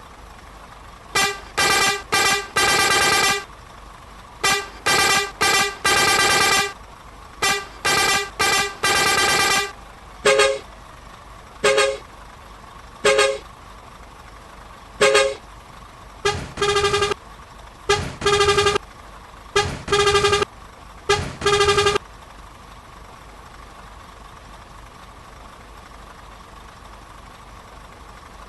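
A bus's multi-tone horn tooting in patterned runs. Three runs of short toots each end in a longer blast, followed by single toots and then pairs of toots. The horn stops about 22 seconds in, leaving a faint steady hum.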